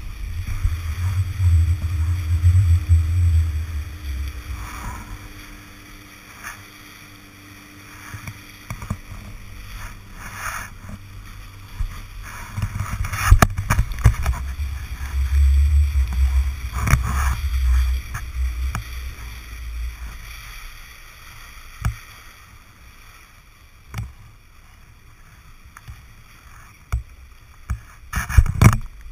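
Wind buffeting an action camera's microphone in heavy low rumbles that come and go, over a steady hiss of wind and water on a choppy lake, with scattered sharp knocks.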